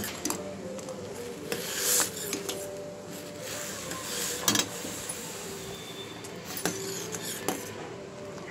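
Steel ladle scraping and clinking against a stainless steel pot while stirring milk that is being boiled down to thicken. A few sharp clinks stand out, the loudest about four and a half seconds in, over a steady hiss.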